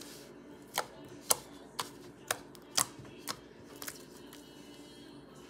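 Slime being stretched and folded by hand, giving off sharp clicks and pops about every half second, six strong ones and then a fainter one.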